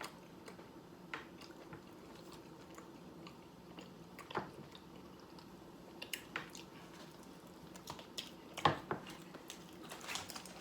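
Quiet chewing and mouth sounds of someone eating a fried chicken sandwich, with a few scattered soft clicks and taps, the loudest near the end.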